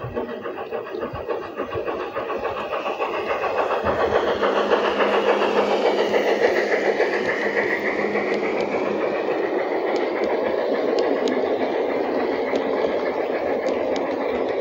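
LGB G-scale model train running past on garden-railway track. The rolling rumble of its wheels and drive grows louder over the first few seconds as it approaches, then holds steady as the wagons pass. From about two-thirds of the way through, sharp clicks come from the wheels crossing rail joints.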